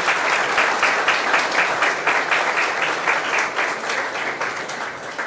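Audience applauding, a dense patter of many hands clapping that slowly dies down over the last couple of seconds.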